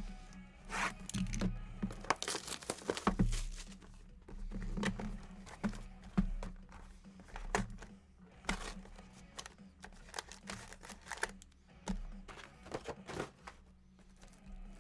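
Plastic shrink wrap being torn and crinkled off sealed trading card boxes, with cardboard boxes handled and set down. Irregular rustling and crackling with scattered sharp clicks.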